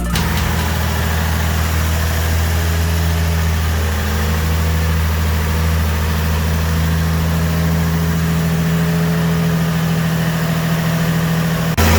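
Turbocharged 2JZ-GE straight-six of a 2003 Lexus IS300 idling steadily, run through a heat cycle to check a freshly RTV-sealed upper oil pan for leaks.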